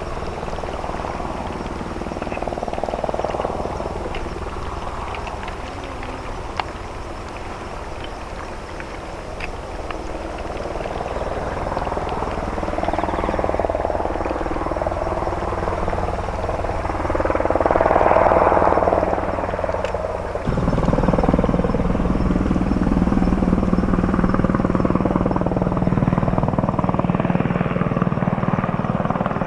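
Diesel engines of a small naval support vessel running steadily, with swelling churn; about two-thirds of the way through, a deeper, louder engine hum comes in suddenly and holds.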